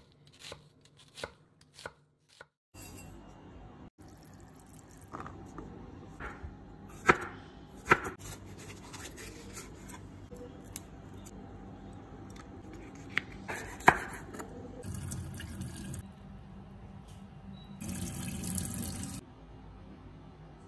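A kitchen knife slicing a red chili on a wooden chopping board, the blade knocking sharply on the board several times. There are two short stretches of hiss in the second half.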